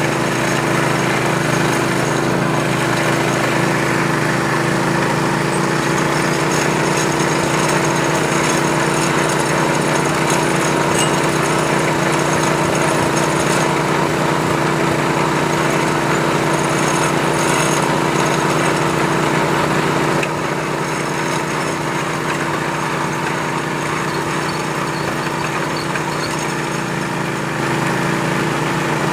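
Borehole well-drilling machine running steadily, a constant mechanical hum with a steady tone, dipping a little in level about two-thirds of the way through.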